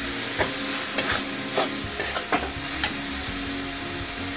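Metal spatula scraping and tapping against a nonstick wok while stirring a frying spice masala with prawns, over a steady sizzle of oil. The strokes stop about three seconds in, leaving only the sizzle.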